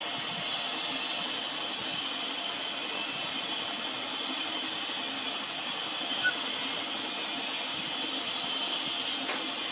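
Steady hissing background noise with no clear source, broken once by a very short, high squeak about six seconds in.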